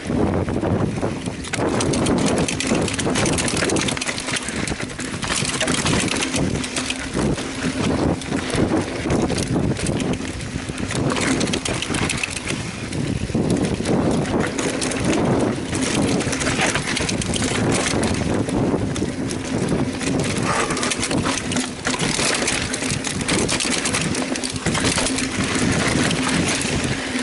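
Mountain bike riding down a rough trail: wind rushing over the microphone, with tyres on dirt and rock and the bike rattling in a steady run of small knocks and clatters.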